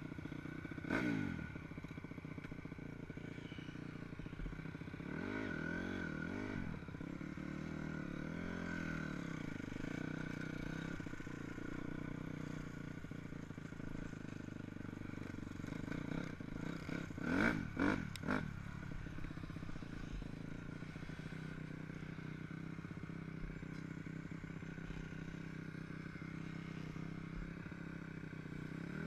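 Dirt bike engine running at low speed, with a few rising-and-falling swells of throttle, the loudest about 17 to 18 seconds in.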